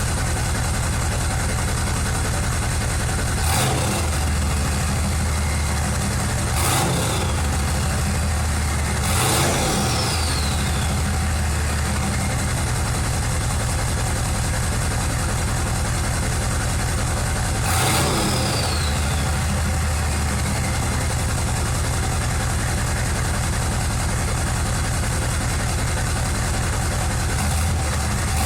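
A 6.5L turbo diesel V8 with a stock turbo and a 4-inch straight-piped exhaust idles with a loud, steady rumble. The throttle is blipped five times. After the bigger blips a high turbo whistle falls in pitch as the turbo spools down.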